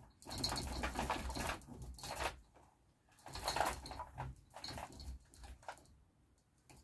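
Metal hoist chain rattling and clinking as it is worked by hand while the engine hangs from it, in two spells of about two seconds each with a short pause between.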